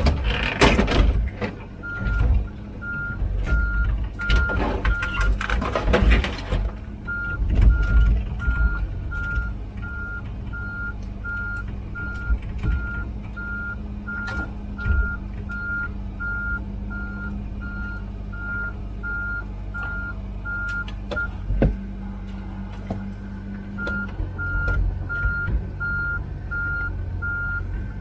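Komatsu PC16 mini excavator travelling on its tracks, its diesel engine running steadily and its travel alarm beeping about twice a second. There are loud rattling, clattering stretches in the first few seconds, and the beeping stops briefly twice.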